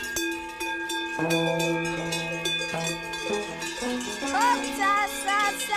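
Large cowbells on walking cows ringing and clanging together, many bells of different pitches sounding at once. From about four seconds in, a short rising-and-falling higher note repeats quickly over the bells.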